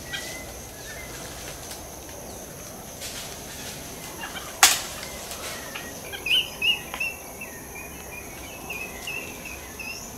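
Tufted capuchin monkeys calling: a string of short, high chirping squeals in the second half, as the troop threatens an intruder. A single sharp snap about four and a half seconds in is the loudest sound, over a steady high insect hum.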